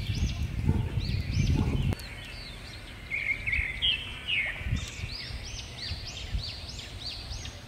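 Birds chirping in a string of short rising-and-falling notes, over a low rumbling noise that drops away about two seconds in. A few soft knocks come later.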